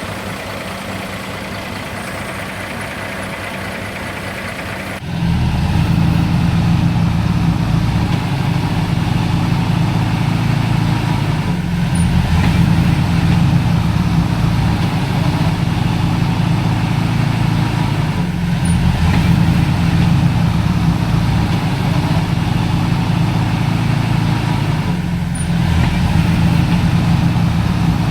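Heavy diesel engine of earthmoving machinery running steadily, jumping suddenly louder about five seconds in, with brief dips every six or seven seconds.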